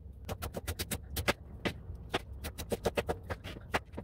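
Chef's knife chopping choy sum stems on a plastic cutting board: quick, crisp cuts at about six a second, each stroke ending in a tap of the blade on the board.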